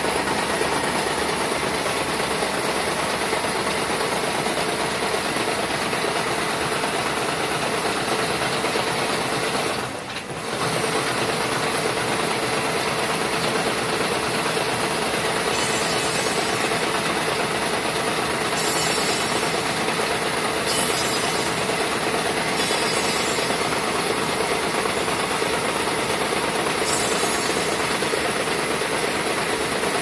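Wire-harness braiding machine running, its bobbin carriers circling around the braiding point in a steady, dense mechanical clatter. The clatter dips briefly about ten seconds in.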